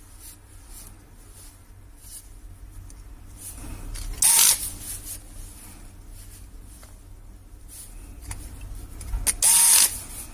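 Electric precision screwdriver whirring in two short bursts, about four seconds in and again near the end, as it drives small screws into a phone's midframe.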